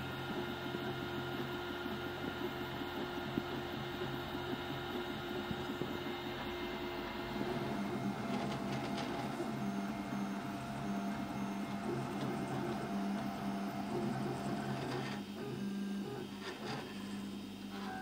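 Prusa i3-style FDM 3D printer running a print: the stepper motors whine in steady tones that shift in pitch as the head's moves change, about seven seconds in and again near the end, over a low steady hum.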